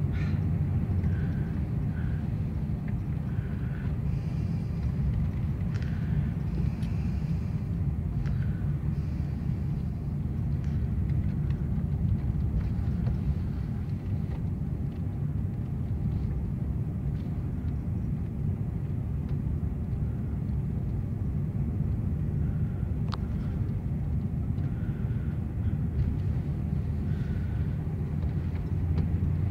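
Steady low rumble of a vehicle being driven, heard from inside the cab: engine and tyre noise on the road.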